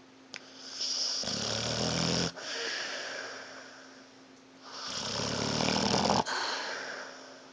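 Pit bull snoring: two low, rattling snores about three and a half seconds apart, each followed by a breathy exhale that fades away.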